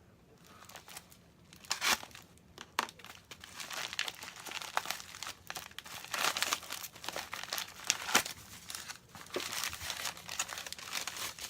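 A small mailing package being torn open and its paper wrapping crumpled and crinkled by hand, with irregular crackling and a few sharp snaps, getting louder and busier after the first second or two.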